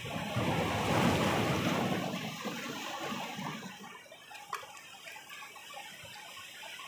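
Sea waves breaking and washing over jetty rocks, swelling about a second in and then easing off. A single short click about halfway through.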